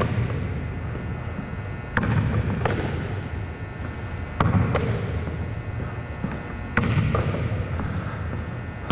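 Basketball bounce passes on a hardwood gym floor: sharp bounces and catches every two to two and a half seconds, echoing in the gym.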